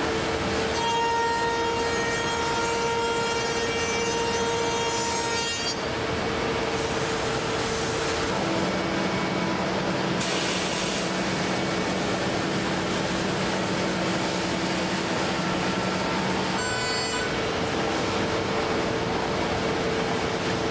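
Busellato JET Optima CNC machining centre cutting wood: steady cutting noise with a few held tones that change pitch about eight seconds in and again near seventeen seconds, as the tooling works along the door parts.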